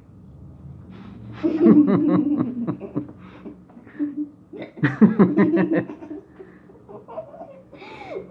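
Laughter in two bouts, the first about a second and a half in and the second about five seconds in.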